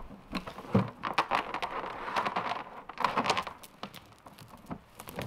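A metal chain being worked loose from around a tree and a plastic barrel, clinking and rattling in a run of quick knocks, loudest about a second in.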